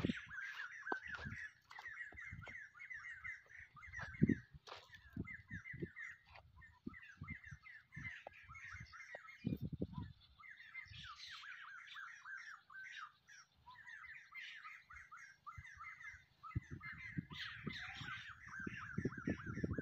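Birds chirping steadily in quick, repeated short notes, with scattered low thumps and a low rumble that thickens near the end.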